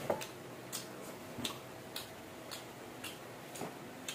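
Close-miked chewing of fried battered squid: a steady rhythm of short, wet mouth clicks a little under two a second, with a slightly louder, lower smack right at the start.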